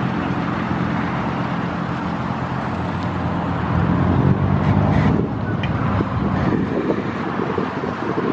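Vehicle engines running as they pass close by: first a classic car, then a double-decker bus's diesel engine, which is loudest about four to five seconds in.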